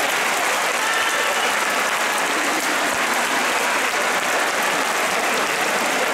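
Large stadium crowd applauding steadily, a dense even patter of thousands of hands.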